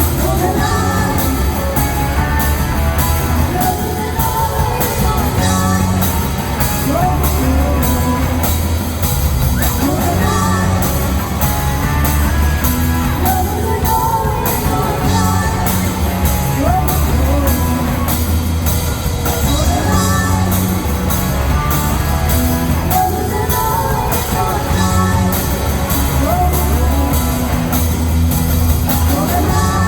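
Rock band playing loudly, with drums and cymbals keeping a steady beat over heavy bass, electric guitar and a singing voice.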